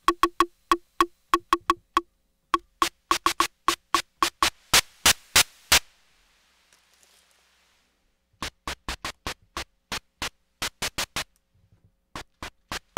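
Akai Rhythm Wolf analog drum machine playing a fast pattern of short percussive hits, with its howl distortion turned up. The first hits carry a pitched tone. They change to sharp clicks with a hiss behind them about five seconds in, then stop for about two seconds before clicking hits start again.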